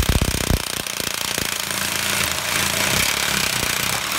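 Reciprocating saw cutting through the copper return bends of an air-conditioning coil, outside the tube sheet. The blade chatters and knocks hard for about the first half second, then cuts steadily.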